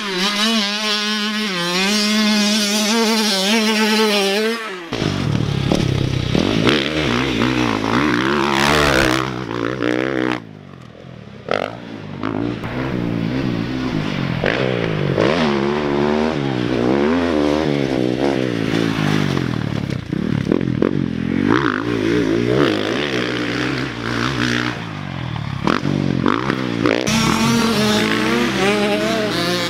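Dirt bike engine revving hard, its pitch rising and falling as the rider opens and closes the throttle. About ten seconds in it drops off for roughly a second, then picks up again.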